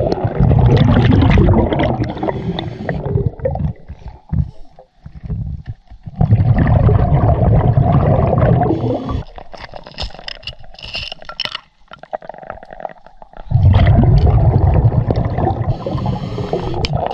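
Underwater sound of a scuba diver's exhaled bubbles leaving the regulator: three long gurgling bursts about six seconds apart, with quieter stretches and scattered clicks between them.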